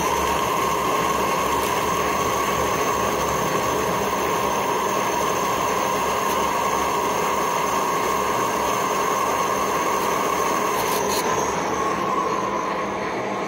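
1616 metal lathe running steadily with a whine while a tool bores out the centre of a large chuck backplate. A high thin tone drops out about eleven seconds in.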